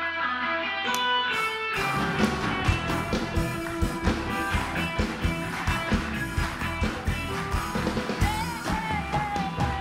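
Live house band playing an upbeat song: held guitar chords open it, then drums come in with a steady beat about two seconds in and the full band plays on.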